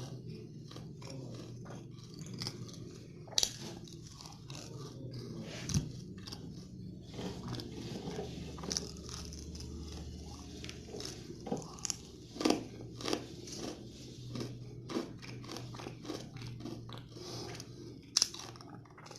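Close-miked chewing and crunching of kadalai mittai, a South Indian peanut-and-jaggery candy, with dense crisp crackling and a few sharp, louder cracks as hard pieces break between the teeth.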